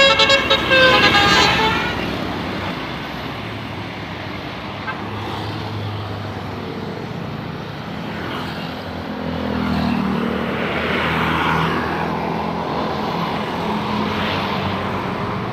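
A tour bus's telolet musical horn plays the last notes of its tune in the first second and a half. Then comes a bus engine running with traffic noise, louder about ten seconds in.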